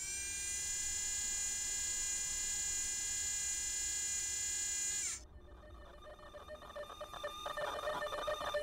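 Animated sound effect of the Curiosity rover's camera mast motor: an electric whine that holds a steady pitch for about five seconds, then winds down and cuts off. A buzzing, rattling mechanical sound follows and grows louder toward the end.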